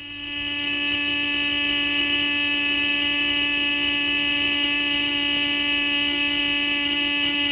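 A wall-mounted electric factory hooter sounding one steady tone, swelling in over about the first second. It is the works' end-of-shift signal.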